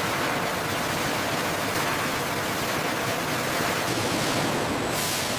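Steady rush of water from high-pressure spray nozzles and water pouring into rinse tanks, with a brighter hiss swelling briefly near the end.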